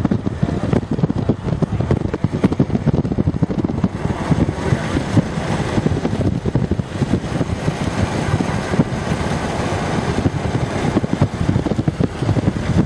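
Loud, gusting wind buffeting the microphone over the rumble of a moving chase vehicle.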